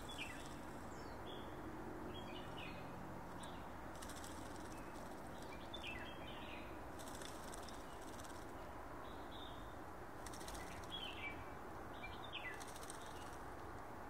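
A small bird bathing in a shallow water dish, with several brief bouts of fluttering and splashing. Short, falling bird chirps come every second or two over a steady low background hiss.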